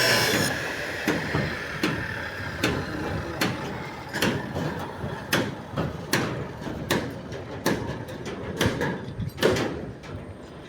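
Irregular sharp knocks and clanks of construction work, about one or two a second, after a loud hissing machine noise cuts off about half a second in.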